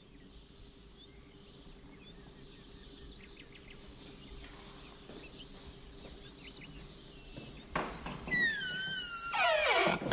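Faint, scattered chirps over a quiet background. About eight seconds in comes a click, then a high, wavering animal call, followed by a louder call that falls in pitch.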